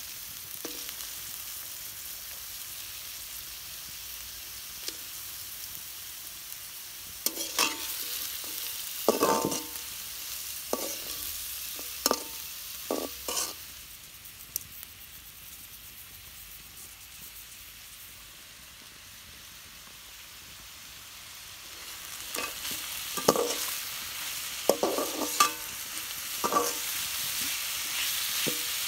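Chicken drumsticks sizzling in hot oil in a pan, with a utensil knocking and scraping against the pan in two spells, near the middle and again toward the end. The sizzle dies down between the two spells and picks up again.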